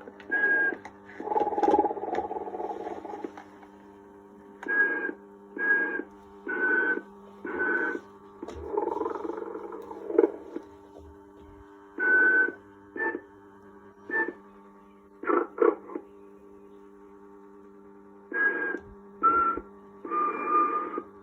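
Vintage animated Sleeping Santa toy snoring and whistling: short whistle-tone snores repeat in irregular groups, with a few longer breathy snores among them, over a steady hum.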